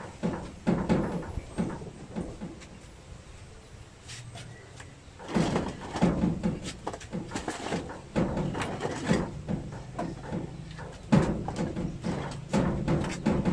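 Handling noise from a rack-mount power amplifier and its cardboard box: irregular bumps and knocks with rustling of the cardboard, the sharpest knock late on.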